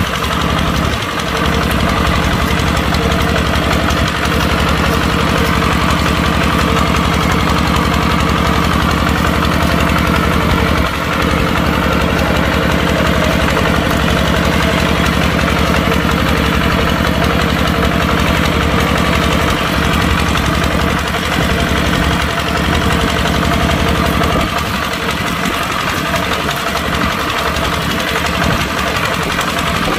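Kubota tractor's diesel engine running steadily at working speed. Its deepest tones thin out and waver near the end.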